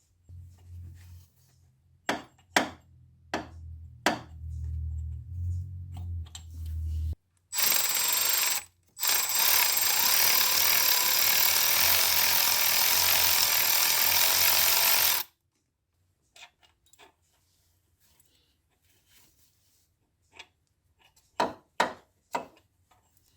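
A power tool runs loudly and steadily in a short burst and then a longer run of about six seconds, while the Alfa Romeo 33's cylinder head bolts are being undone. Before it, a low hum with sharp clicks of tools. After it, scattered metallic clinks.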